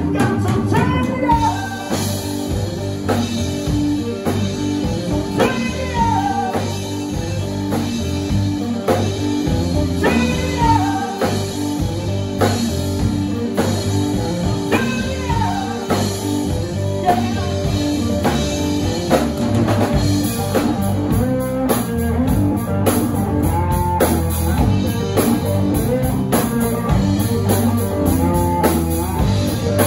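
Live blues-rock band playing: electric guitar, bass guitar and drum kit, with a lead line that bends in pitch every few seconds.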